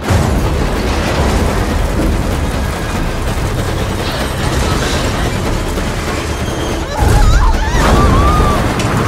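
Car-chase sound from inside a fast-driven car: heavy rumbling engine and road noise that starts suddenly, getting louder about seven seconds in, with a wavering high squeal.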